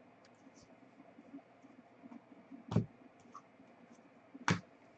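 Trading cards being handled between calls: faint scraping and ticking, with two sharp clicks about a second and a half apart near the middle and the end.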